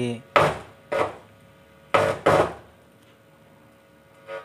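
Loudspeaker on a mixer amplifier giving four loud, sudden pops, as a multimeter probe touches the signal input socket next to the supply-voltage socket. These are the startling thumps of a mis-placed measurement. A faint mains hum runs underneath.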